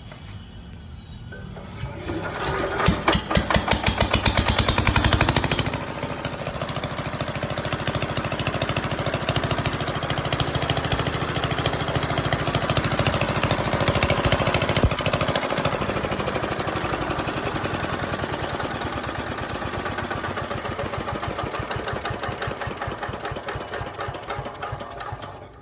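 Small generator's engine catching about two seconds in and running fast and loud for a few seconds, then settling into a steady, rhythmic run.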